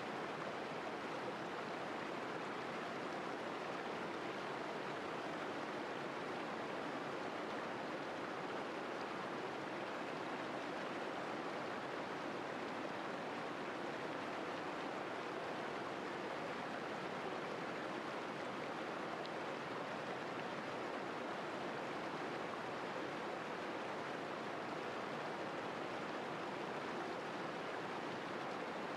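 Shallow river water rushing over rocks in small rapids: a steady, even rush.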